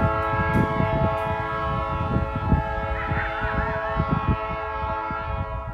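Diesel locomotive air horn blowing one long, steady multi-note chord as the train approaches a grade crossing. The horn cuts off near the end, with irregular low thumps underneath.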